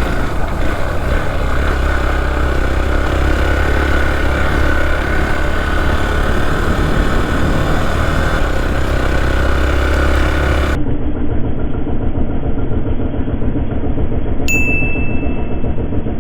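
Motorcycle engine running on the move, with a steady low wind rumble on the microphone. About eleven seconds in the sound suddenly turns duller, and near the end a single short high beep sounds.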